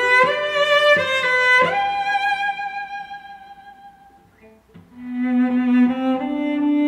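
Background music on bowed strings, violin over a lower cello-like line, playing slow held notes. The phrase fades out about four seconds in, and a new phrase begins about a second later.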